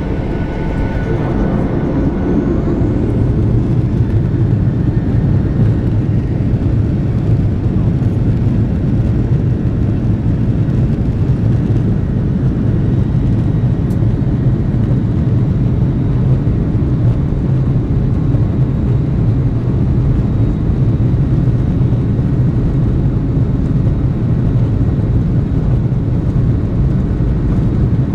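Cabin noise inside a Boeing 737-900 on the ground: a steady low rumble from its CFM56 turbofan engines and airframe that swells a little in the first few seconds, then holds level.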